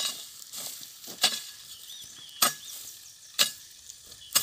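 Garden hoe chopping into grassy soil, a sharp strike about once a second, each followed by a short scrape as the blade cuts through the weeds.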